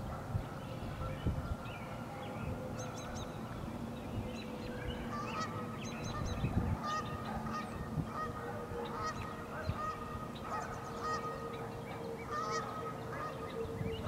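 Canada geese honking on the water, over a steady droning tone in the background.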